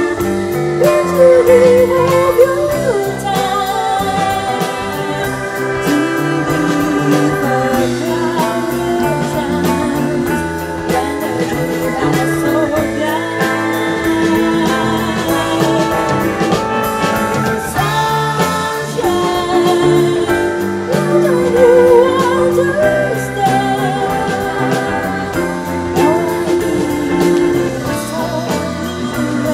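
Live band performing a song with a woman singing lead into a microphone, backed by keyboard, electric guitar, bass and drum kit.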